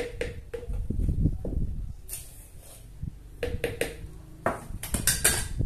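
A metal spoon scraping and knocking inside a metal cup, some knocks leaving the cup ringing briefly, as passion-fruit pulp is spooned out into a blender jar. The clicks come in irregular clusters, busiest near the end.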